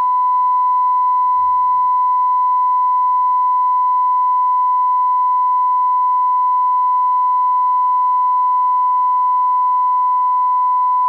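A censor bleep: one loud, steady, unbroken beep tone masking a spoken remark.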